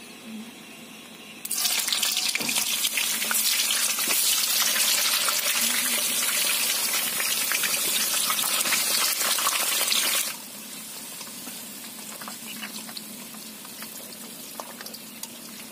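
Heavy rain falling: a loud, steady hiss that starts abruptly about a second and a half in and cuts off about ten seconds in. A quieter hiss of rain with scattered small drips follows.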